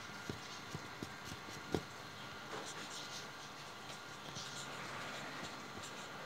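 A few faint, light taps in the first two seconds over low room noise, then only faint rustling.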